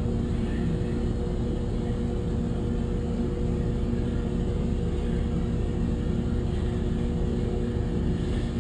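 Steady machine hum, a constant low drone with a few fixed pitched tones and no change in speed.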